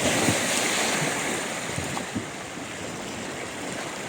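Sea surf washing onto the shore, a steady rushing hiss that eases off about halfway through, with wind gusting on the microphone.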